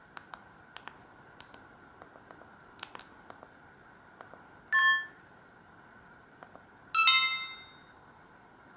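Samsung GT-E2152 mobile phone: a string of light keypad clicks, then two short electronic ringtone snippets from its speaker. The first is a brief chime about halfway in; the second starts about two seconds later and rings out for under a second.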